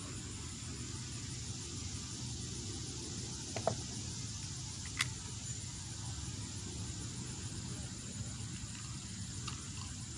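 Quiet outdoor background: a steady low rumble with a faint high hiss, broken only by a few faint clicks about four and five seconds in and near the end. No shot is fired.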